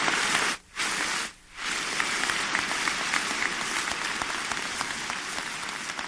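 Audience applauding: dense, steady clapping, with two brief drop-outs in the first two seconds.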